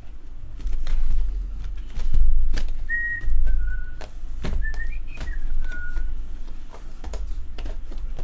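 A person whistles a short tune of a few notes from about three seconds in to about six, while cardboard hobby boxes are moved, knocked and set down on a table with repeated taps and thumps.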